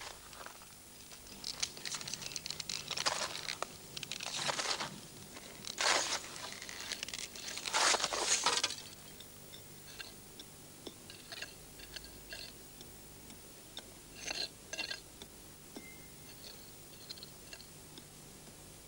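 Gritty scraping and crunching of sandy soil and gravel being dug and sifted by hand: several strokes in the first half, then lighter scattered clicks and rattles of small stones.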